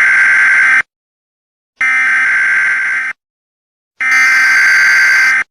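Emergency alert alarm tone, a loud harsh steady buzz sounded three times, each lasting about a second with about a second of silence between.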